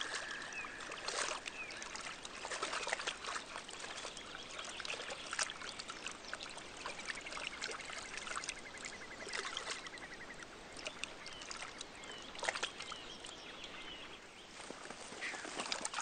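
Faint lake-water ambience: water trickling and lapping with scattered soft clicks and small splashes. A faint rapid trill sounds from about seven to ten seconds in.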